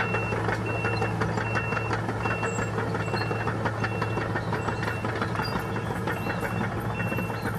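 D180 crawler bulldozer running steadily while backing up, its reversing alarm giving a short high beep about every three-quarters of a second over the engine.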